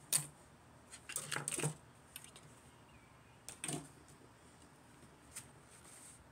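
Small clicks and rustles from plastic Gunpla model-kit parts being handled: a sharp click at the start, a quick cluster about a second in, and another click past the halfway point.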